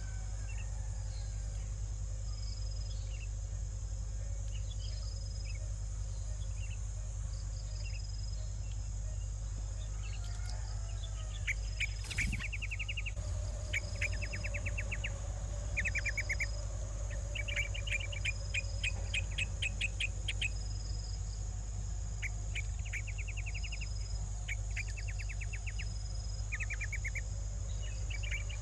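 Steady high-pitched chorus of crickets. About eleven seconds in, short rapid chirping trills join it and repeat every second or two, with one sharp click just after they begin.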